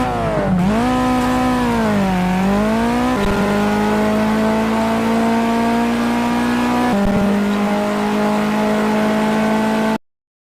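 Car engine revving, its pitch dipping and climbing a few times, then holding at a steady speed for several seconds before cutting off abruptly.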